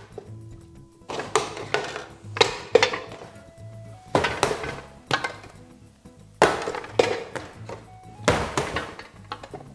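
Pieces of bread dough being scaled off by hand, set into a metal scale pan and put down on a steel bench: a string of dull thuds and knocks, about ten in all, over background music.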